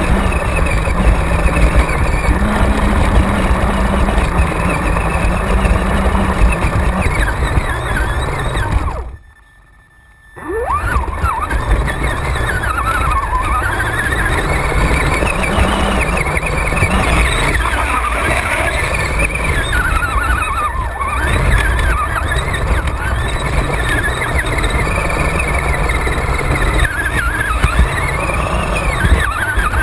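Radio-controlled off-road truck driving through shallow creek water, heard from a camera mounted on the truck. Its motor whine rises and falls in pitch with the throttle over a constant rumble and splashing. About nine seconds in, the sound cuts out almost completely for a second and a half, then returns.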